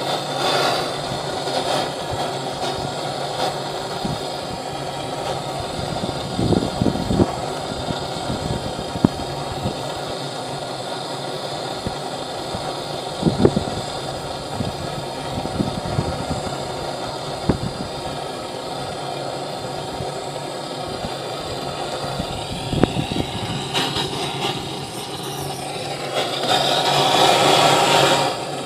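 Handheld gas-cartridge blowtorch burning with a steady hiss, with a few short crackles from burning straw. The flame surges louder for a couple of seconds near the end.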